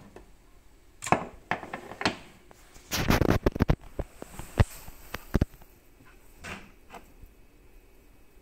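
Handling noise: a smartphone being moved about and set into a wooden stand on a wooden desk, a scattered series of knocks and clicks with a dense cluster of them about three seconds in.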